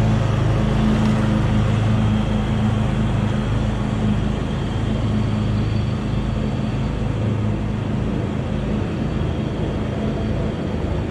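An engine running steadily with a low hum, easing off slightly toward the end.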